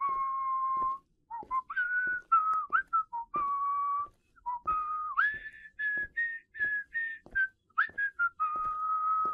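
A person whistling a tune with pursed lips, in short phrases with brief pauses, ending on a long held note.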